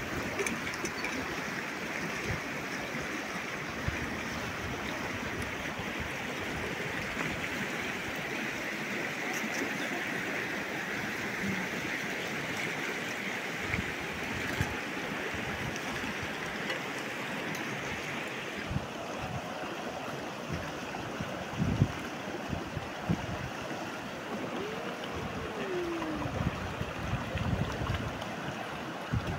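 River water flowing steadily, a constant rushing noise that shifts slightly about two-thirds of the way through, with a few soft knocks.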